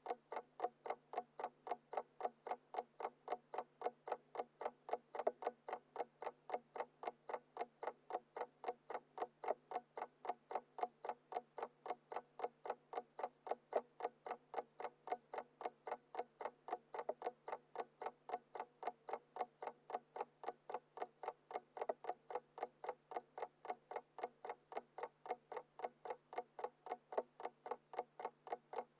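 Mechanical alarm clock ticking steadily, a few even ticks a second.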